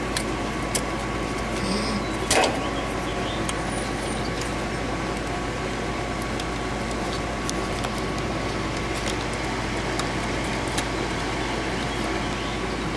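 Steady mechanical hum in the background, with a faint high steady tone. A few light clicks come in the first seconds, the sharpest about two and a half seconds in, as wires are pulled off the condenser's contactor terminals.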